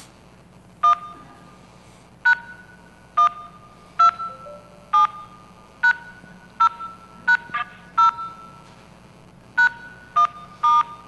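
Telephone keypad DTMF tones: about thirteen short two-tone beeps keyed by hand at uneven intervals, each with a click at the start and a brief ringing tail. They are commands dialed over a phone call to a VoIP bot, which decodes them as digits, on a line whose poor quality is blamed for losing some of the tones.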